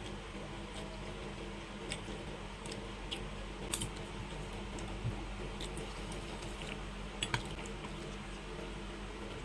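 Scattered light clicks of cutlery against a plate during a meal, irregular and a few seconds apart, over a steady low hum.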